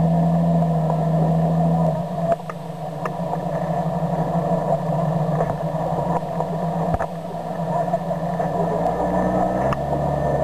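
Jeep Scrambler's engine pulling at low speed as the Jeep crawls up over boulders. The engine note drops about two seconds in and then slowly builds again, with a few sharp knocks along the way.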